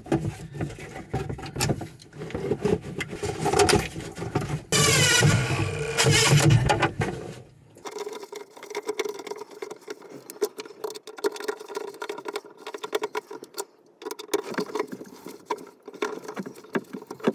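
Small clicks, taps and rattles of hands and tools working wires into the terminal block of a metal RV automatic transfer switch box. The sound is louder and fuller in the first half, and after that it is a run of small sharp clicks.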